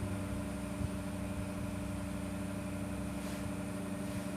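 Steady mechanical hum with a single soft knock about a second in.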